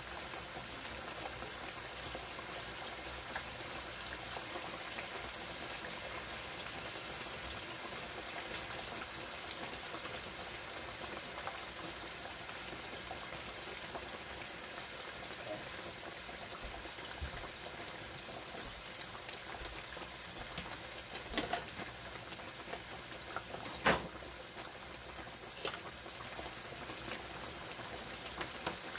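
Steady sizzling and bubbling of food cooking on the stove: liver and sliced onions frying in oil, with steak simmering in gravy in the next pan. A few sharp clicks come in the last third, the loudest about three quarters of the way in.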